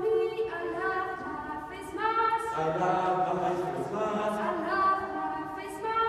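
A group of voices singing together without instruments, in short repeated phrases.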